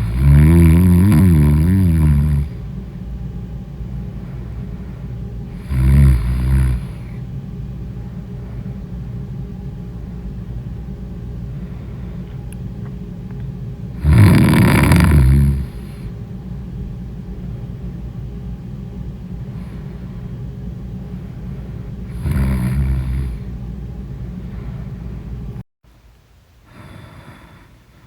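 A sleeping person snoring loudly, four long snores about seven to eight seconds apart over a steady low hum. Near the end the sound drops off sharply.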